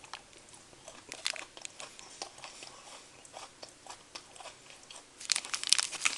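Person eating a Pigall candy bar: scattered faint crunches and chewing clicks, then a louder burst of crackling near the end.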